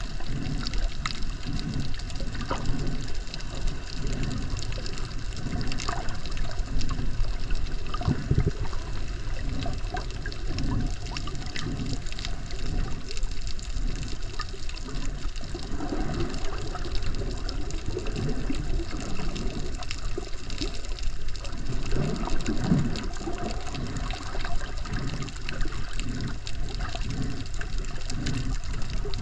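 Water sloshing around an underwater camera, heard as a muffled, continuous swish with low surges about once a second.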